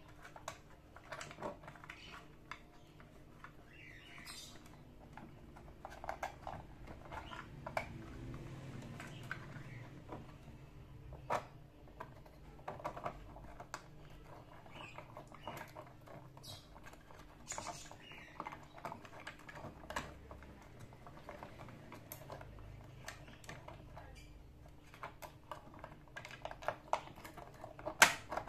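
Hands handling and fitting 3D-printed plastic parts of a spool holder and its white axle spacer: irregular light clicks and taps of plastic on plastic, with a sharper knock near the end.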